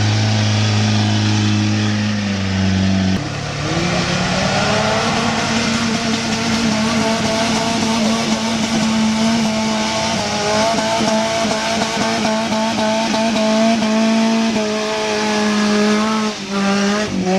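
Off-road 4x4's engine running hard at steady high revs, its pitch shifting abruptly about three seconds in and dipping then climbing again near the end.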